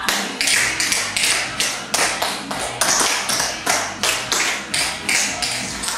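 A steady percussive beat of sharp hits, about three a second, with a low thump under some of them and no melody: the drum break of the dance music being played.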